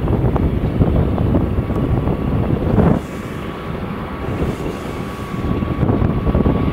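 2TE116U twin-section diesel locomotive's engines running under load as it hauls a freight train, a steady low drone with a thin steady whine over it. Wind buffets the microphone; the sound drops about three seconds in and rises again near the end.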